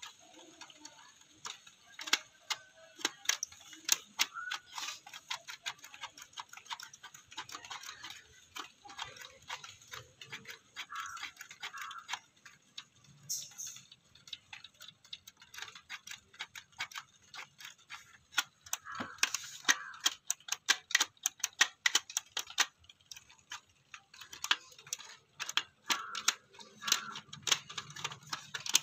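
Plastic clicking of an old cassette deck's piano-key buttons and mechanism being pressed and handled: many sharp, irregular clicks, thickest about two-thirds of the way through.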